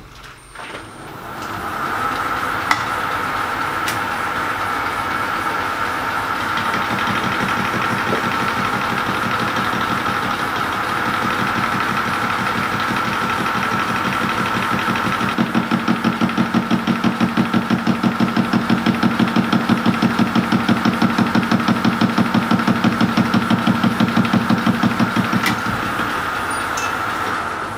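Metal lathe starting up and running with a steady whine from its motor and gearing. About halfway through, a fast rhythmic knock joins in as the carbide-tipped tool takes an interrupted cut on the stainless-steel crank web, striking once per turn. Near the end the lathe is switched off and the sound dies away.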